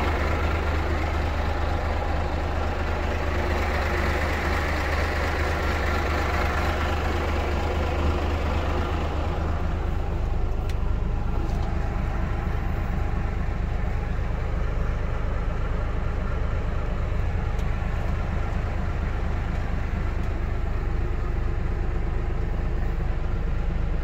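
Mercedes 1617 truck's diesel engine idling steadily, a low even hum, heard from inside the cab; the higher hiss fades about ten seconds in.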